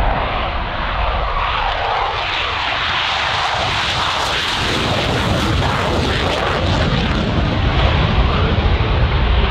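Saab 35 Draken's afterburning turbojet at full afterburner during a takeoff and climb-out: loud jet noise that is at its loudest about four to six seconds in as the jet lifts off and passes, with crackling, then turns to a deeper rumble as it climbs away.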